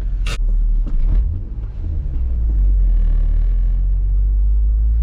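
Acura TL Type S's V6 engine and road noise heard from inside the cabin while driving: a heavy, steady low rumble with one short, sharp click about a third of a second in.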